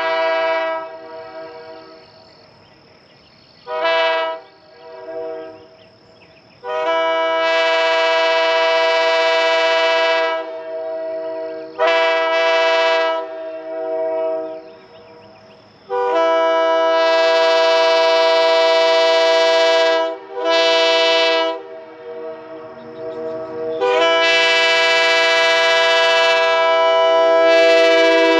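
Early-1960s sandcast Airchime K3H three-chime train horn blowing a steady chord in a series of blasts: several long ones held about four seconds, with short and quieter toots between. Its number 1 bell still has a slight warble, by the owner's account.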